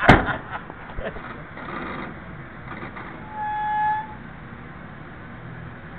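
A sharp knock at the start, then a single steady honk of a vehicle horn, under a second long, a little past three seconds in.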